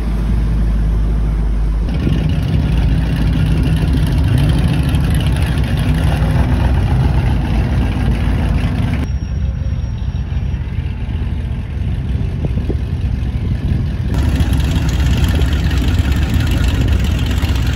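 Classic hot-rod car engines idling and driving by at low speed, a steady deep exhaust note. The sound changes abruptly a few times as one car's engine gives way to another's.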